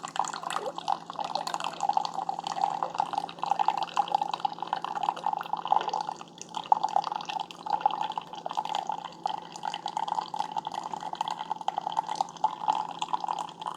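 Keurig K-Supreme Plus brewing: a thin stream of hot coffee splashing and spattering steadily into a cup, over a constant low hum from the machine.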